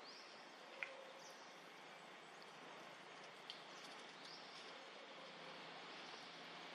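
Near silence: faint, steady outdoor hiss with a few brief high chirps, and a short sharp click about a second in.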